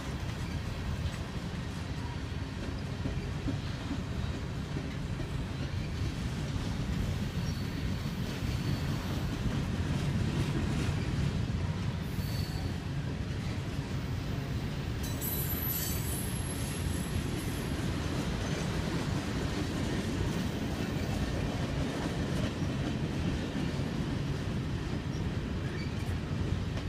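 Canadian Pacific grain train's covered hopper cars rolling past on steel rails, with a steady low rumble from the wheels and trucks. Brief, faint high-pitched wheel squeals come through a few times.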